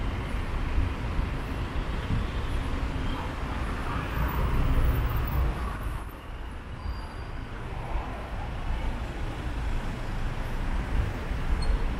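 City street ambience: a steady low rumble of traffic and general street noise, briefly a little quieter just past the middle.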